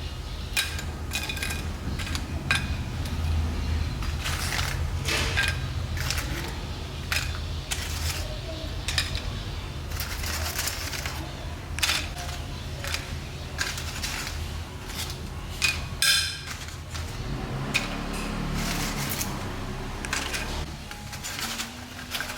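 Repeated sharp clinks and clatters of kitchen utensils and dishes being handled, irregular and spread throughout, over a low steady hum.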